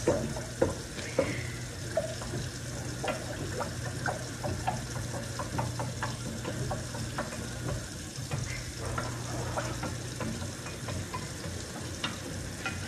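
Metal spoon stirring a drink in a glass container, with irregular light clinks against the glass, over a steady low hum.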